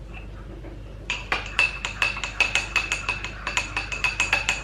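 Teaspoon stirring a mug of coffee, clinking against the inside of the mug about five or six times a second with a ringing tone, starting about a second in.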